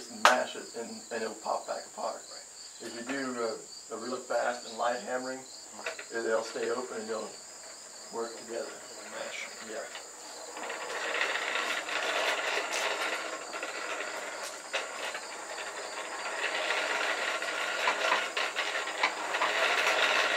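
Blacksmith's forge fire rushing steadily under an air blast from about eleven seconds in, with one sharp clink just after the start. Insects chirp steadily throughout.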